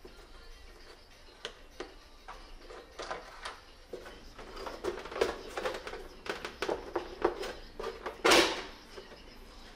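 Scattered clicks and knocks of hands working a motorcycle's plastic tank cover loose, growing busier after about three seconds, with one louder scraping clunk about eight seconds in.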